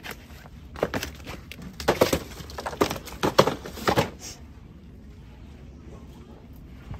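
A handful of sharp knocks and clatters in the first four seconds or so, then a steady low store background.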